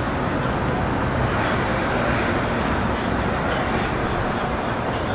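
Steady outdoor city noise with a continuous rumble of road traffic, plus a few faint high chirps now and then.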